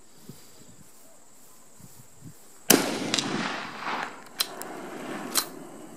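A single shot from a scoped .308 bolt-action rifle almost three seconds in: a sharp crack whose echo rolls away over about two seconds. It is followed by a few short, sharp clicks.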